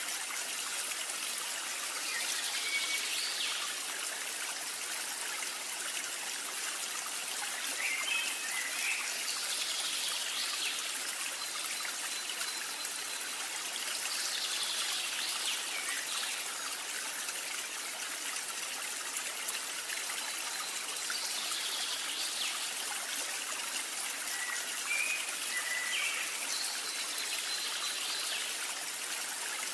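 A steady rushing hiss like a flowing stream, with faint brief higher sounds every five or six seconds.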